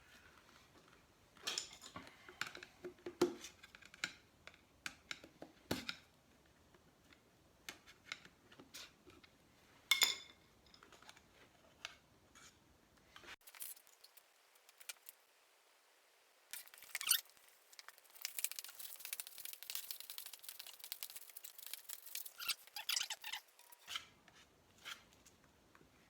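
Scattered clicks and rustles, then about seven seconds of rapid scraping, from putting on work gloves and mixing Bondo body filler with a spreader.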